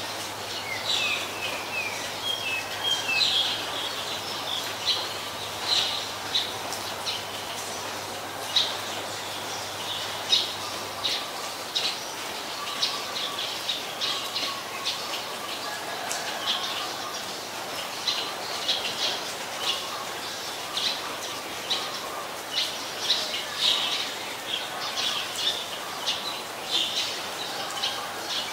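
Birds chirping: a steady run of short, high calls, several a second at times, over a faint hiss.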